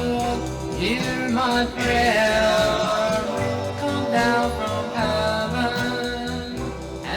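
1960 vocal group record: singing with backing instruments and a bass line moving under it.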